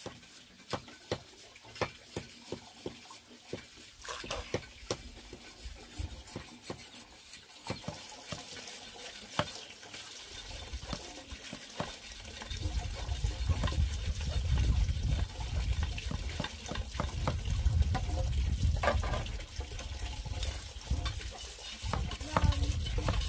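Repeated sharp knocks of a machete blade striking and splitting green bamboo poles. A low rumble joins from about halfway through.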